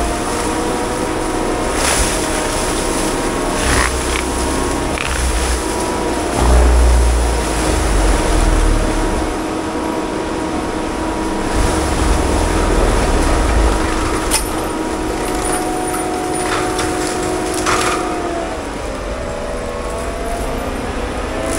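Heavy tracked equipment's diesel engine running steadily under load, with a hydraulic whine that shifts in pitch near the end and a few sharp cracks.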